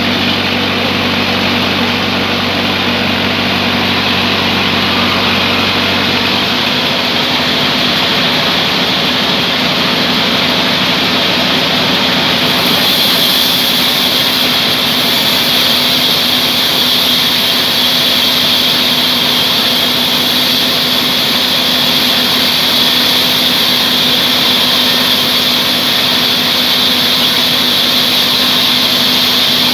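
Band sawmill running steadily, its motor humming under a broad saw hiss; about 12 seconds in the hiss grows brighter and stays so.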